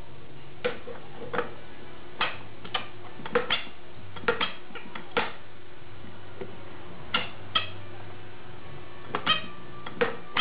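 A baby's noise-maker toy being shaken or struck in irregular sharp clicks, about fifteen in all, some coming in quick pairs, each with a brief ring.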